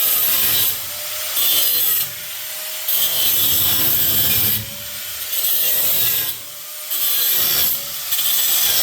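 Reciprocating saw (Sawzall) cutting through the bus's seat backs in about six bursts of a second or two each, the saw stopping briefly and starting again between cuts.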